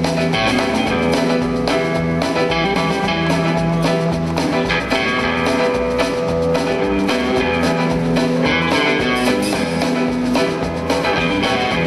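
Background music: a guitar-led instrumental with drums and a steady beat.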